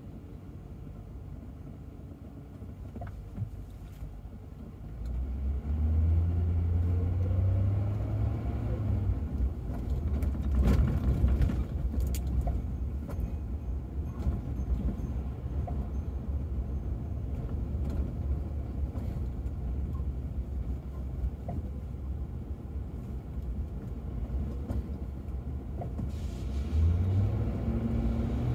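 Ford Crown Victoria's V8 engine and tyres heard from inside the cabin: quiet while stopped, then a rising engine note as the car pulls away from a standstill about five seconds in, settling into a steady low road rumble. A few sharp knocks come around ten to twelve seconds in, and the engine note rises again near the end.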